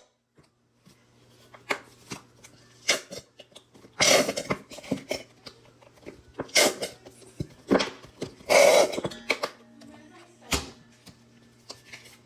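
Kitchen food-prep handling: scattered knocks and clicks of utensils and containers, with two longer scraping or rustling bursts about four and eight and a half seconds in, over a faint steady low hum.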